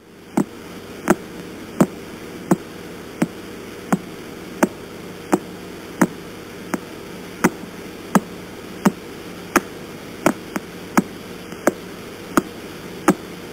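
Radio signal of the pulsar PSR B0329+54 turned into sound: a sharp click about 1.4 times a second, one for each rotation of the neutron star, over a steady hiss of static. Some clicks are weaker than others.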